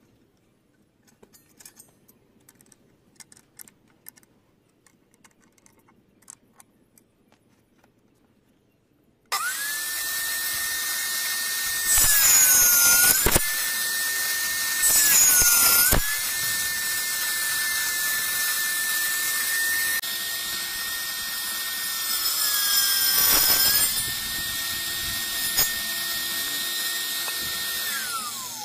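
Faint handling clicks, then about nine seconds in a homemade table saw (a power-tool motor mounted under a board) starts with a high steady whine. Three times its pitch sags and a louder hiss of cutting rises as a wooden strip is fed through the blade, and near the end it is switched off and spins down.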